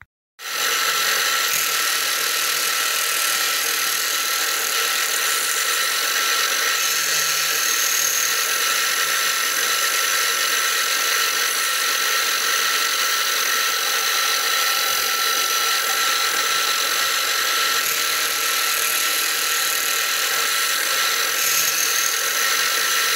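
Milling machine running with a steady high whine while its end mill cuts away the plastic track part of a Peco N gauge turntable. The sound cuts in abruptly just after the start.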